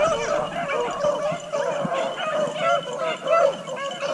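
A pack of beagles baying as they run a cottontail rabbit on its scent, many short cries from several dogs overlapping.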